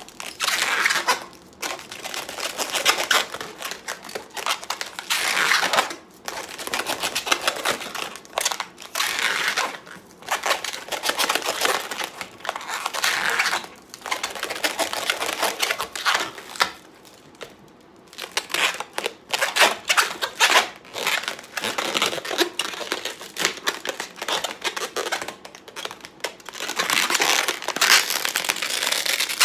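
Long purple latex modelling balloon being handled and twisted by hand: latex rubbing against fingers in stretches of a few seconds, broken by short pauses, the longest a little past the middle.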